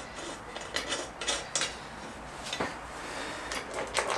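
Small metal clicks and clinks of screws, washers and nylon lock nuts being handled and fitted to a steel motorcycle wheel chock frame. The clicks are scattered, with a short cluster near the end.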